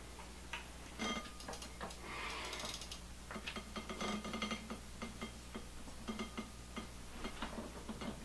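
Irregular light metallic clicks and clinks of tools and parts as a crank arm is fitted back onto a Bafang BBS02 mid-drive motor's spindle, with a ringing clink about a second in.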